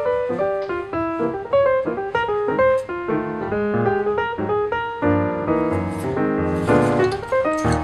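Background piano music: a bright melody of quick notes over chords, growing busier and fuller about five seconds in.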